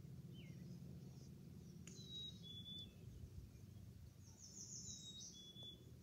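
Faint birdsong: a few short chirps and thin high whistles, with a quick run of rapid notes near the end, over a steady low background noise.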